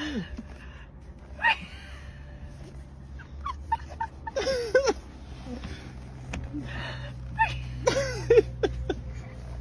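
Baby fussing in short high whiny bursts, three or four times, over a low steady hum.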